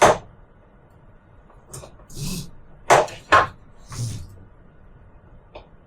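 A run of handling noises: a sharp knock at the start, short scraping rustles, and two sharp clacks about three seconds in, then a faint click near the end.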